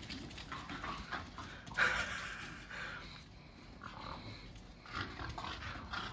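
A French Bulldog making short, irregular breathing noises during a game of fetch. The loudest comes about two seconds in.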